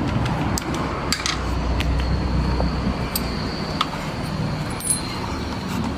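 Sharp clicks and metallic clinks of a handheld stone cutter being handled and readied for a test run after a rotor replacement, over a low steady hum.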